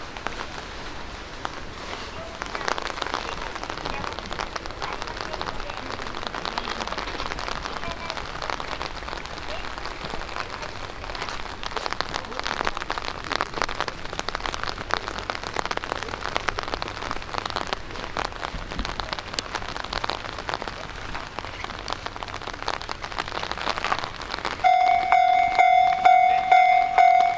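Rain pattering steadily on a hard surface. About 25 seconds in, a Japanese railway level-crossing alarm starts ringing loudly, a metallic tone struck over and over a few times a second, signalling that a train is coming and the barriers are about to close.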